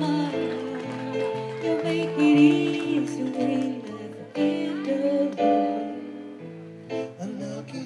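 Background music: a song with a singing voice over instruments and a stepping bass line.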